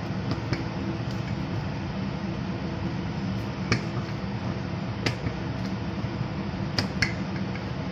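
Wooden rolling pin rolling out paratha dough on a round rolling board, with a few light clicks of the pin against the board, over a steady background hum.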